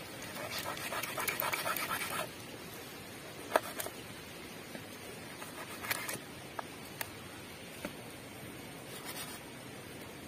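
Large knife cutting through an eel on a wooden plank: a quick run of rasping sawing strokes for about a second and a half, then a few separate sharp taps as the blade knocks the wood.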